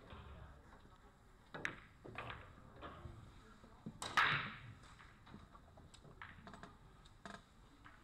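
Scattered light clicks and knocks in a pool hall, with one short, louder noisy burst about four seconds in.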